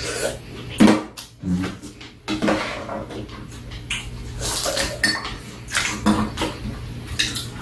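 A metal spoon and chopsticks clinking and scraping against small bowls as food is eaten, a scatter of short, irregular clinks.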